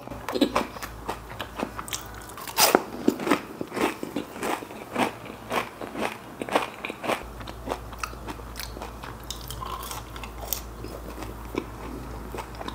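Close-up mouth sounds of biting into and chewing a crispy battered onion ring dipped in cheese sauce: a quick run of sharp crunches, loudest about two and a half seconds in, thinning to softer, sparser chewing in the second half.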